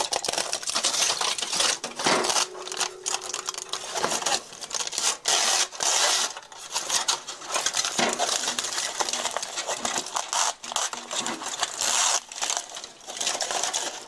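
Aluminium foil crinkling and crackling in irregular bursts as it is peeled and crumpled off a hardened slab of spruce pitch (resin) that is sticking to it.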